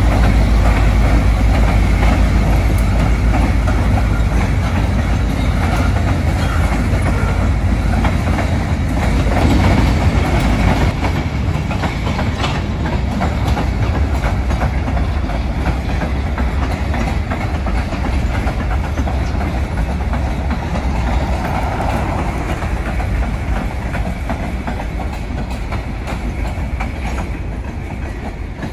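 A diesel freight train crossing a wooden trestle. The locomotives' deep engine sound is heaviest for the first several seconds, then the freight cars roll over with a steady clickety-clack of wheels on rail joints, fading gradually near the end as the last cars pass.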